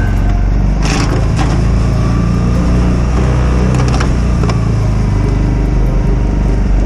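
Segway Snarler ATV engine running steadily as it pushes heavy snow with a front-mounted plow, with a couple of brief knocks about a second in.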